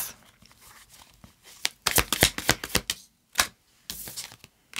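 Tarot cards being shuffled by hand: a quick run of light card flicks and slaps in the middle, then a short soft rustle of cards near the end.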